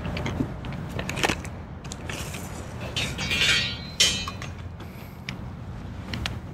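A tape measure's blade is pulled out with a whirring rattle about three seconds in, then stops with a sharp click. A few lighter clicks come before it, over a low steady rumble.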